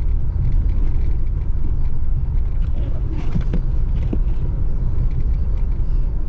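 Steady low rumble of a vehicle driving, heard from inside the cabin.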